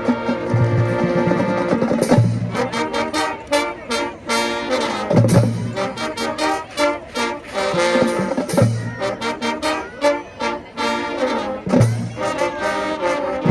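High school marching band playing: brass (trombones and trumpets) in held chords over drums, with quick runs of sharp percussion strokes and a low bass-drum hit every three to four seconds.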